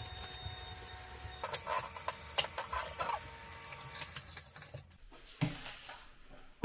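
Clicks, knocks and scrapes of cleaning at a bathroom sink: objects handled on the counter and a cloth wiping the basin. A steady low hum stops about a second and a half in.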